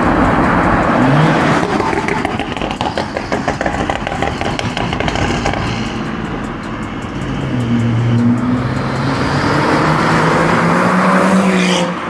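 Exhaust of a BMW 335i's N55 turbocharged inline-six, run through a catless downpipe with resonator delete and the stock muffler, as the car accelerates past and away. The engine note climbs about a second in and eases off. It climbs again in the second half and drops sharply near the end.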